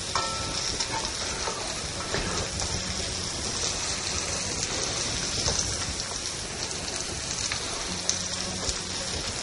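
Sliced carrots sizzling steadily in hot oil in a wok as they are stir-fried, with a few sharp clicks of the stirring utensil against the wok.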